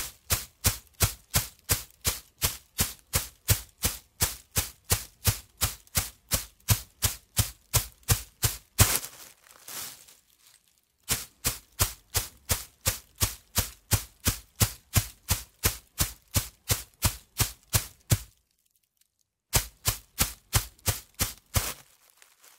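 Footsteps of a person running on a dirt and gravel path, with even crunching strides at about three a second. The running breaks off twice, about 9 s in and about 18 s in, and starts again each time.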